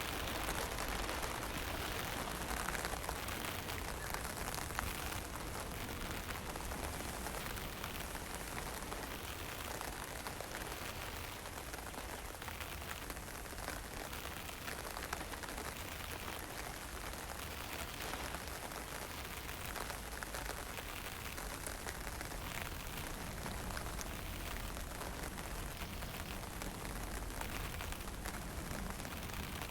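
Steady wind with a fine drizzle falling: an even hiss over a low rumble, with faint drops ticking now and then.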